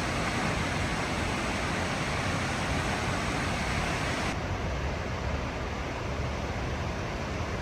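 Waterfall's steady rush of falling water, an even hiss whose brightest, highest part fades out about four seconds in.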